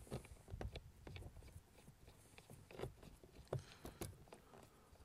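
Faint, scattered clicks and small knocks of metal oar shafts being handled and fitted onto an inflatable boat's oarlock pins.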